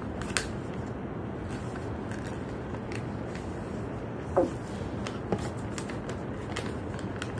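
A sheet of paper being handled, folded and creased by hand on a wooden table: soft rustling and scraping with a few sharper clicks, the loudest about four seconds in.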